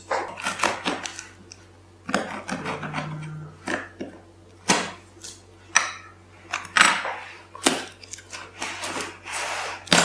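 Scissors snipping at the packing tape on a box, with a string of sharp, irregular clicks and knocks as the box is handled and the scissors are laid on a wooden table, and a scraping rustle near the end.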